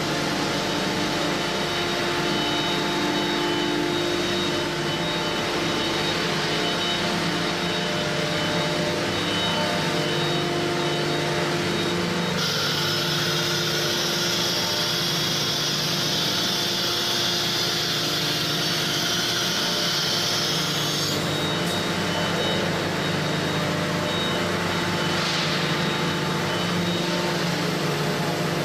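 Automatic-tool-change CNC router machinery running: a steady hum with several held tones. A hiss starts abruptly about twelve seconds in and stops suddenly some nine seconds later.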